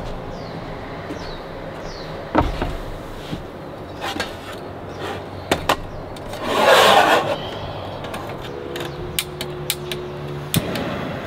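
Clinks and knocks of a metal kettle and a portable gas stove being handled and set up on a camp table, with a short hiss around the middle while the gas canister's hose is fitted, and a run of small clicks near the end as the kettle is settled onto the stove.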